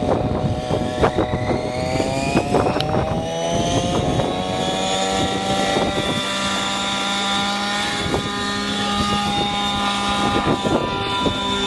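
RC model helicopter running, its whine rising in pitch over the first several seconds as the rotor spools up, then holding steady at head speed. Short irregular crackles are mixed in throughout.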